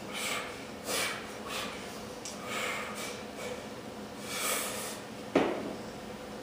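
A weightlifter taking a series of short, forceful bracing breaths under a heavily loaded barbell, about six in five seconds. Then one sharp, loud clank of the loaded bar against the squat rack's hooks as he takes the weight.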